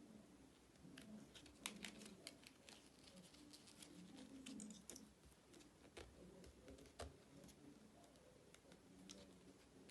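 Very quiet handling sounds: scattered light clicks and taps of small objects being handled and set down, over a faint low room hum.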